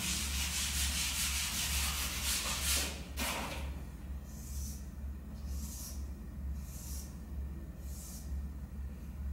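A whiteboard eraser rubs across the board in quick strokes for about three seconds and stops. After a short pause, a marker scratches out a series of short strokes, about one a second, as lines are ruled on the whiteboard. A steady low electrical hum runs underneath.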